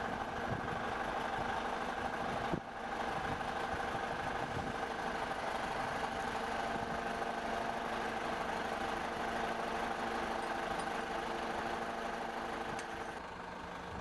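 Bobcat S175 skid steer loader's diesel engine running at a steady speed, with a brief dip about two and a half seconds in and a slight drop near the end.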